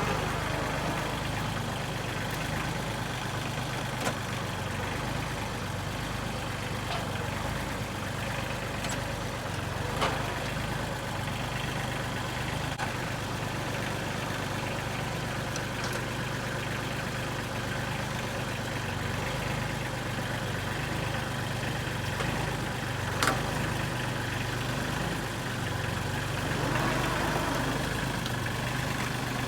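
Tractor engine running steadily at a low idle, with a few sharp knocks now and then.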